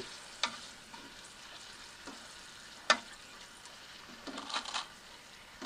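Dried shrimp cracker frying in a pot of hot oil, a steady sizzle as it puffs up, with a few sharp clicks, the loudest about halfway through.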